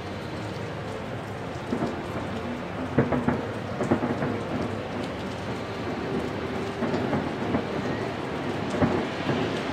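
Fireworks display: a dense steady crackle with several booms going off over it, the sharpest about three and four seconds in.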